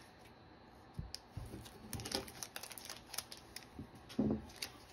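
Scattered light clicks, taps and crinkles of trading-card booster packs and cards being handled, with a brief low hum about four seconds in.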